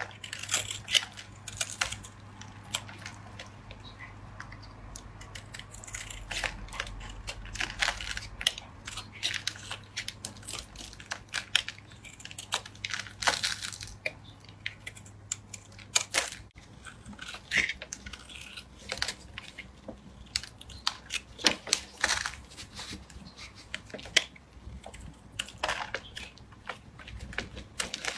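A blade cutting and carving dry soap: irregular crisp scraping and crunching strokes, coming in quick clusters.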